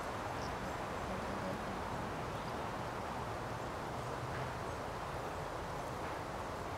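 Steady outdoor background noise: an even rush of wind and rustling leaves, with no distinct events.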